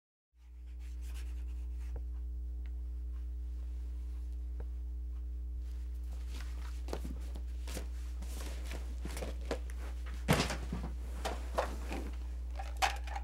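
A steady low hum, with pencil scratching on paper and rustling, then a few sharp knocks and thumps, the loudest about ten seconds in.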